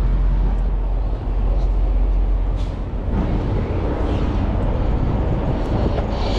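Diesel truck engine idling with a steady low rumble.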